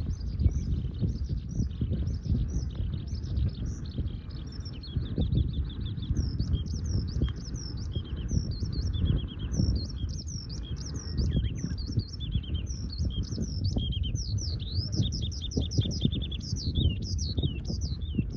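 Small songbirds chirping and giving quick trills throughout, over a steady low crackling rumble from a campfire burning close by.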